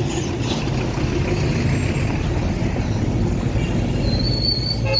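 Rush-hour street traffic: a steady low rumble of vehicles, with a brief high-pitched squeal near the end.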